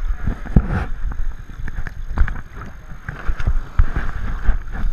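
Seawater sloshing and splashing against an action camera held at the surface, with small waves washing in. The water lands as irregular thumps and splashes, a few a second, with no engine or voice.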